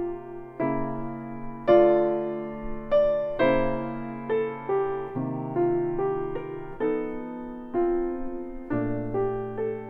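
Background music: a solo piano playing a slow, gentle melody, its notes struck about once or twice a second and left to ring.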